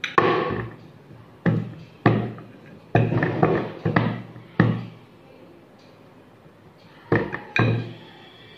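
Wooden rolling pin rolling out a sheet of dough on a round wooden rolling board, the board knocking against the tabletop with each stroke. The knocks come in a quick string, pause for about two seconds, then return twice near the end.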